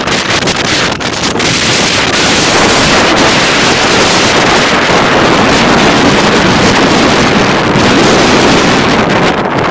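Loud, steady roar of strong wind buffeting the camera microphone, mixed with heavy storm surf breaking against the shore.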